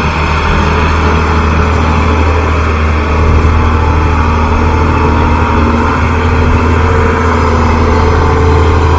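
Heavy diesel truck engine running under steady load with a deep, constant hum that grows slightly louder.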